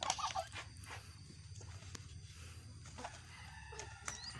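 Kid goat feeding in a pile of dry sugarcane leaves: scattered crunches and rustles of the dry stalks, a few sharp clicks among them. A faint drawn-out animal call comes in about three seconds in.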